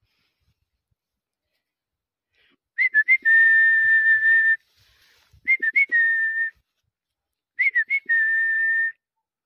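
A person whistling three times, each call a few quick short notes followed by one long held note, at an even high pitch.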